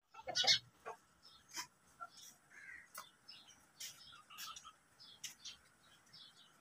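Birds chirping and calling in short, scattered, high-pitched calls, faint, with the loudest call about half a second in.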